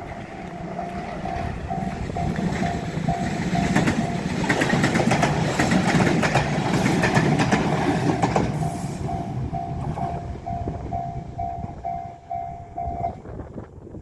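Japanese railway level-crossing warning bell ringing a steady repeating ding about twice a second. About four seconds in, a train runs through the crossing, its wheels clacking over the rail joints and drowning out the bell for about four seconds. The bell stops about a second before the end, as the crossing clears.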